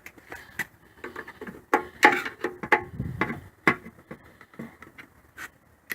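Irregular clicks and knocks from hands working on a small Briggs & Stratton engine while it is not running.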